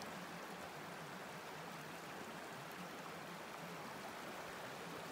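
Fast-flowing rocky river rushing steadily over and around boulders.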